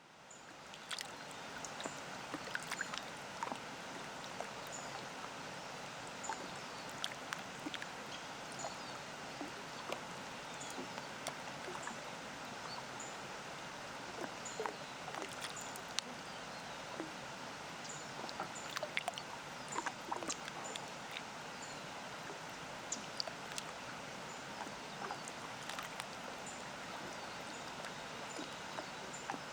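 Small waves lapping at a lakeshore, many little splashes over a steady wash of water, with a distant waterfall behind. A faint, short, high bird chirp repeats about once a second. The sound fades in over the first second.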